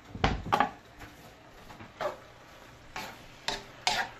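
Wooden spoon stirring minced meat and chopped mushrooms in a wok, with scraping strokes against the pan and a faint sizzle of frying underneath. Two louder knocks come about half a second in.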